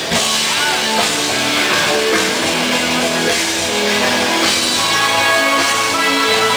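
Live rock band playing through a PA system, with electric guitar, bass and drum kit.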